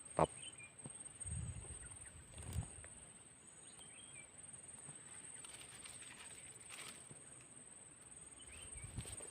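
Quiet outdoor ambience with a steady high-pitched insect drone, faint short chirps and a few bird calls, and a few soft thumps of handling or footsteps about one and two and a half seconds in.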